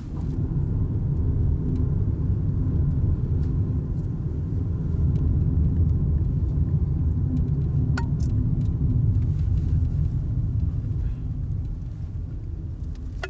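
Car driving, heard from inside the cabin: a steady low rumble of engine and tyres on the road, easing off near the end. A single sharp click about eight seconds in.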